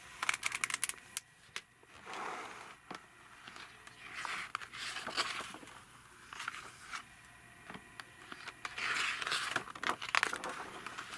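A hardcover picture book being handled and opened, its paper pages turned: a quick run of light clicks near the start, then several swishing, crinkling page turns.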